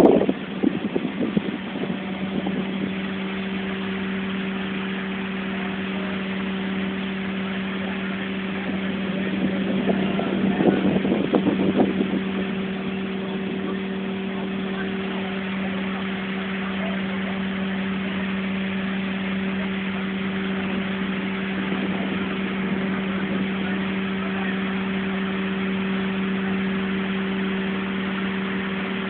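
Fishing boat's engine running steadily, a constant low hum, with a louder rush of noise for a few seconds around the middle.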